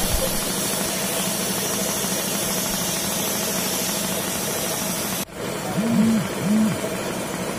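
Engine idling steadily under a constant hiss. The sound breaks off abruptly about five seconds in and resumes, with a few short rising-and-falling tones just after.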